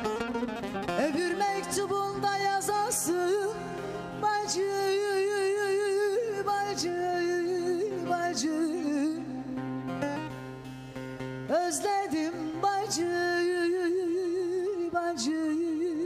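A woman singing a Turkish folk song in long, drawn-out ornamented notes with a quick vibrato, over a plucked string instrument accompaniment.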